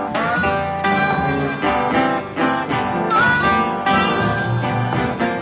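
A live acoustic blues band playing a slow blues: strummed and picked acoustic guitars over congas and drums, with a harmonica wailing and bending notes over the top.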